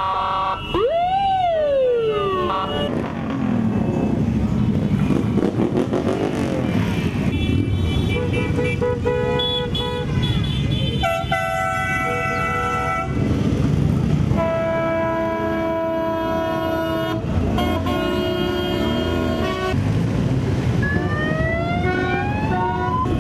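Motorcycle engines running as a parade of bikes passes, with horns honking in long, overlapping blasts throughout. About a second in, a wailing tone rises and falls, and near the end rising tones sound.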